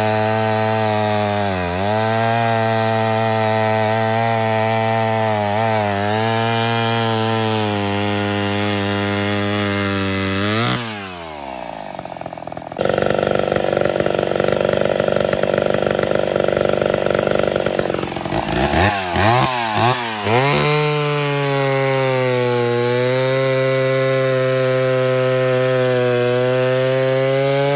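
Ported Homelite two-stroke chainsaw cutting through a log under load, the engine note steady with brief dips, winding down about ten seconds in. After a cut, the same saw, with a modified carburetor and pod air filter, runs at high revs unloaded for several seconds, is revved in a few quick blips, then settles into another steady cut, no longer sluggish as the owner sees it.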